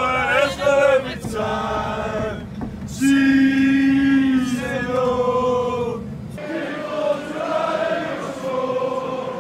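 Male voices singing a football chant in long held notes, the sound breaking off and picking up again twice, at about three and six seconds in.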